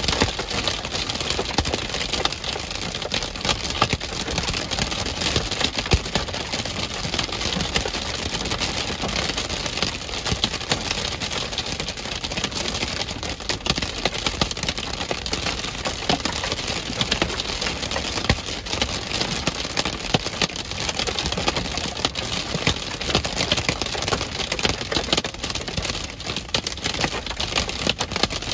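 Hail and rain pelting a vehicle, heard from inside the cab through its shattered windshield: a dense, rapid clatter of impacts over a steady rush of noise.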